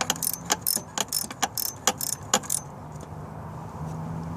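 Socket ratchet wrench clicking in quick, uneven strokes as a bolt is backed out, stopping about two and a half seconds in.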